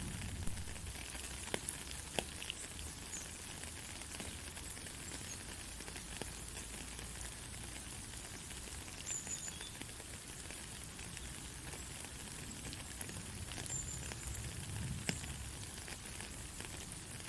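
Steady rain falling as an even hiss, with scattered louder drops ticking sharply.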